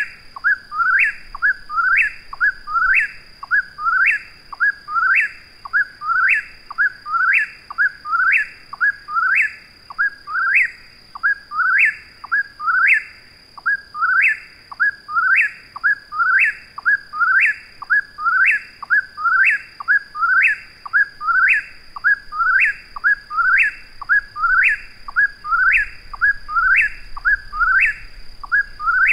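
Eastern whip-poor-will singing its name, the whistled three-part 'whip-poor-will' phrase with a sharply rising last note, repeated over and over without a break.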